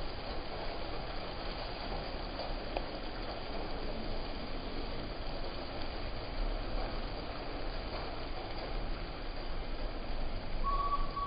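Steady traffic noise on a wet road: engines and tyres of slow-moving cars, a small box truck and motorbikes. A steady high-pitched tone starts near the end.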